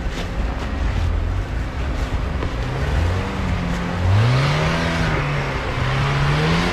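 Off-road 4x4's engine pulling through mud and snow, its revs rising and falling several times from a little way in. A rushing noise joins about four seconds in.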